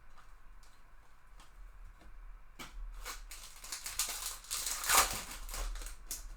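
Trading-card packs being handled and opened: foil wrappers crinkling and tearing with light clicks and taps of cards, and a louder stretch of crinkling about four to five seconds in.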